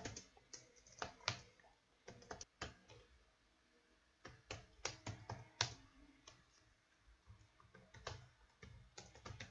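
Faint clicking of computer keyboard keys typed in short irregular runs, with brief pauses between the runs.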